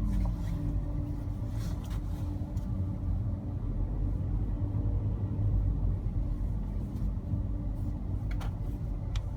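Car cabin noise while driving: a steady low rumble of engine and tyres, with the engine note falling during the first second as the car slows. A couple of light clicks sound near the end.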